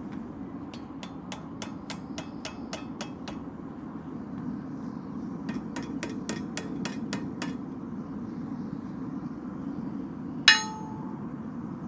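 Hand hammer striking a steel bar on an I-beam used as an anvil. A quick run of about ten blows, about four a second, is followed by a pause and about seven more, then one louder clang near the end that keeps ringing.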